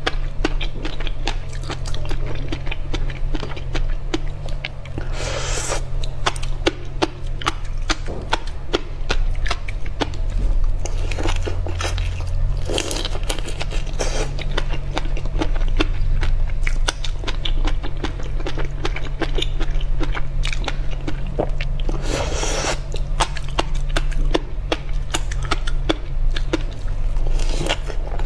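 Close-miked eating of roe-topped shrimp: many small crackles and crunches as the shells are pulled apart and bitten, with chewing. A few brief, louder hissing bursts come about 5, 13 and 22 seconds in, over a steady low hum.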